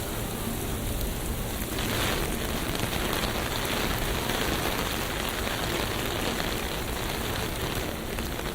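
Rain falling in a city street: a steady hiss. The hiss swells about two seconds in and stays louder for several seconds.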